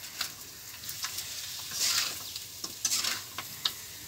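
A spatula stirring chicken pieces and spice paste frying in a black karahi: a steady sizzle, with a scraping swish at each stroke, about once a second.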